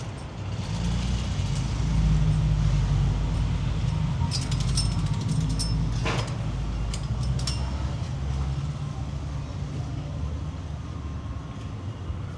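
A heavy vehicle passing in street traffic: its engine rumble swells about two seconds in, holds for a few seconds and then fades. A few sharp high clicks come in the middle.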